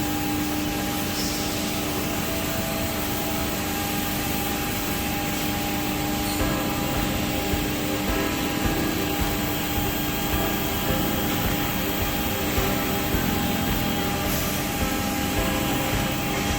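CNC router machine for woodworking running steadily, its spindle giving an even whine over constant motor and machine noise.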